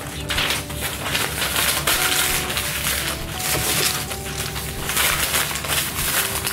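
Construction paper rustling and crinkling as it is handled and cut with scissors, in a run of irregular crackly bursts.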